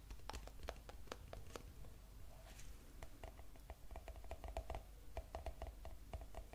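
ASMR tapping on an object: scattered clicks at first, then from about halfway a quick run of taps with a hollow ringing note.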